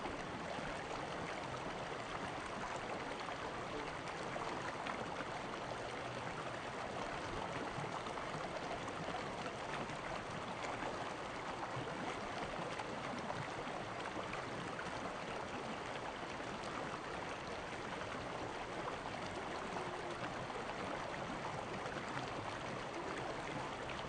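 A shallow, rocky stream running over and between boulders: a steady rush of water.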